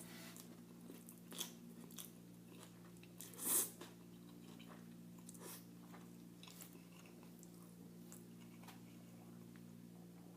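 Close-up eating sounds: a person biting and chewing food, with scattered small crunches and clicks and one louder crunch about three and a half seconds in, over a steady low hum.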